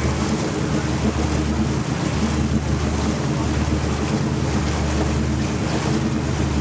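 A fishing boat's engine running steadily under way, with the wake rushing behind it and wind buffeting the microphone.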